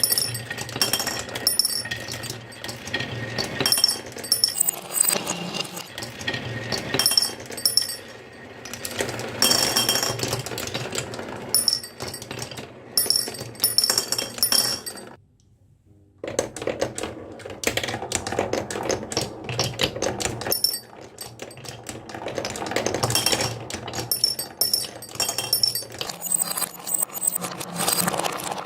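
Marbles rolling and clattering down a wooden marble-run track, with dense sharp clicks and high ringing clinks. It all breaks off for about a second midway, then resumes.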